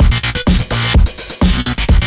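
Loud electronic dance music with a heavy kick-drum beat that turns choppy and stuttering.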